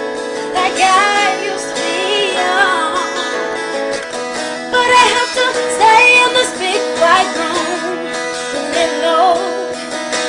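Song playing as background music: a female voice singing over acoustic guitar.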